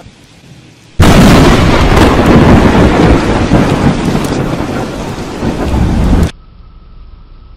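Thunder from a very close lightning strike: a sudden, very loud crack about a second in, rumbling on with heavy rain for about five seconds, then cutting off suddenly.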